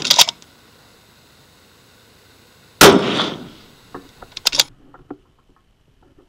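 A Tikka bolt-action rifle fires once, about three seconds in, a sharp report with a short fading echo. About a second later comes a quick run of small metallic clicks as the bolt is cycled. A few similar clicks follow the tail of an earlier shot at the very start.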